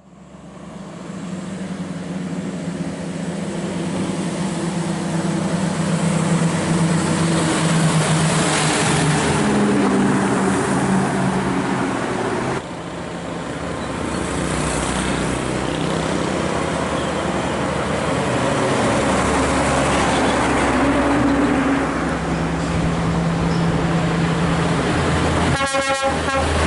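Heavy diesel trucks driving past with steady engine and road noise. Near the end a truck's horn sounds briefly.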